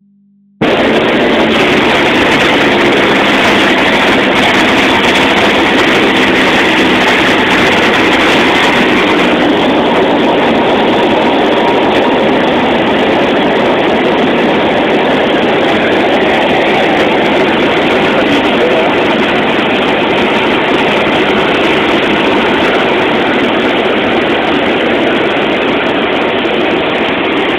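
Cessna 172 light aircraft's piston engine and propeller running steadily, a loud, even drone that starts about half a second in.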